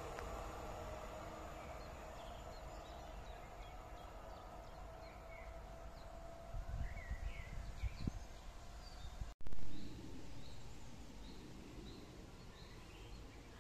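A pair of Newag Impuls 2 electric multiple units receding down the line: a fading rumble with a faint whine slowly dropping in pitch, while songbirds chirp. A few low rumbles come near the middle. About nine seconds in the sound cuts out for an instant and a short loud burst follows, then birdsong over a quiet background.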